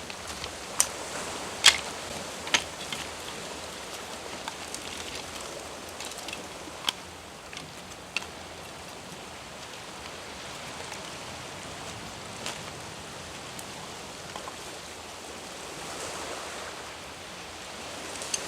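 Wood fire burning in a campfire stand: a steady hiss with a few sharp pops and snaps in the first several seconds, then a steady burn.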